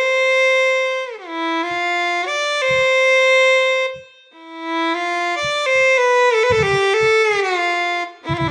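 Physically modelled solo string instrument (SWAM Solo Strings v3) played live from a MIDI keyboard: held bowed notes joined by slow portamento slides up and down, a short break about four seconds in, then quicker stepped notes and slides. A few soft low knocks sound under the later notes.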